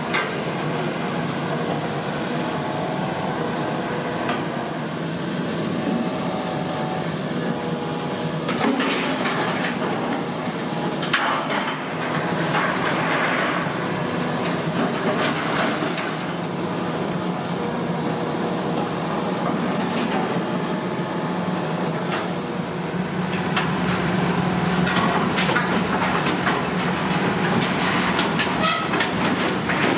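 Volvo EC480E high-reach demolition excavator running steadily while its demolition tool tears into a steel silo. Scattered metallic clanks and crunches come from the sheet metal, bunched about a third of the way in and again near the end.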